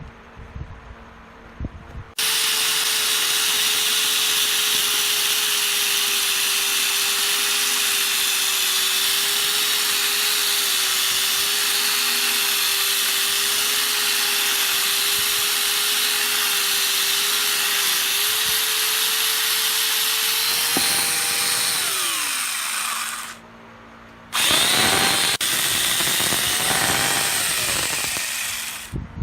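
Electric power tool working wood: a steady motor whine over a loud hissing cut starts about two seconds in and runs for some twenty seconds. The whine falls and it stops, then the tool starts again a second later with a rising whine and runs a few seconds more.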